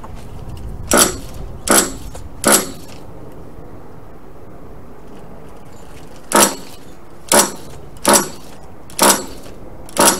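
Recoil pull-starter of a nitro RC truck engine yanked eight times: a short ratcheting rasp with each pull, three quick pulls then five more after a pause. The glow engine cranks but does not fire.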